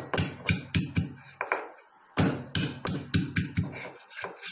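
Pestle pounding hard, woody liquorice root with milk in a small mortar: a run of sharp knocks about three a second, a short pause about one and a half seconds in, then another run and one last light knock near the end.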